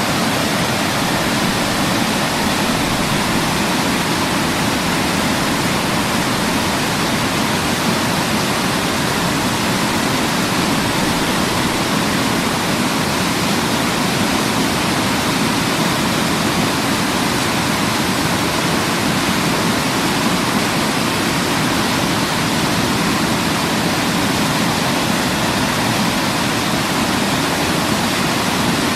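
Waterfall: steady, even rush of falling water, unchanging throughout.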